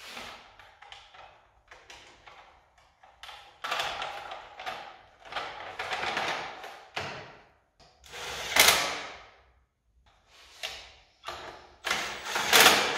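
Workshop handling noise while a motorcycle licence plate bracket is fitted: irregular clatter, knocks and scrapes of metal parts and hand tools, with two louder knocks, one about two-thirds through and one near the end.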